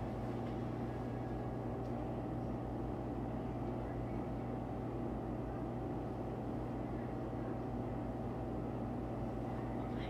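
A steady low hum with a few fixed-pitch tones, unchanging throughout, like a running fan or other appliance.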